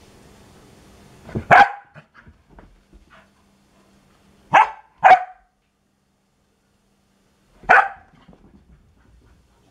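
Young corgi giving short, sharp play barks to get someone to play: one about a second and a half in, a quick pair around five seconds, and one more near eight seconds, with quiet between.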